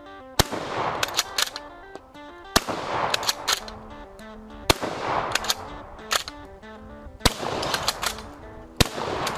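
Bolt-action shotgun fired five times in quick succession, about two seconds apart, with the bolt clicking as it is worked between shots. Background music plays throughout.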